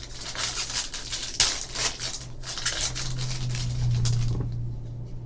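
Foil wrapper of a trading card pack being torn open and crinkled: a rustling crackle that stops about four and a half seconds in. A low steady hum sits underneath.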